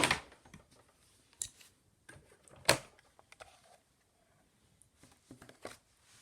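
A few sharp clicks and knocks of handling, the loudest a little under halfway through, with near quiet between them; no vacuum motor is running.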